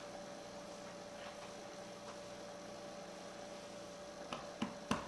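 Steady electrical mains hum with a faint hiss, and three short, sharp sounds in quick succession near the end.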